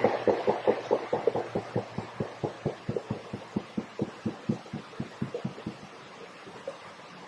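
A fast, even throbbing, about five pulses a second, that fades away over about six seconds. It is the unexplained night noise recorded at the river's edge, which the recordist likens to a big cat's call that you feel as much as hear.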